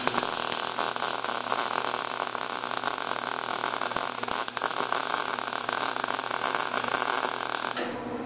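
MIG welder arc crackling steadily as a test bead is run on a scrap of mild steel to dial in the heat setting, stopping abruptly near the end.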